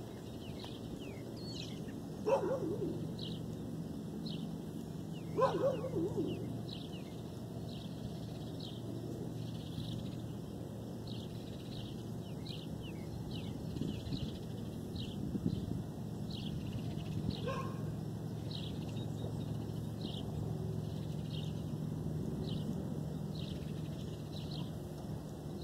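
A dog barks twice, a few seconds apart, and then once more, shorter and fainter, about two-thirds of the way through.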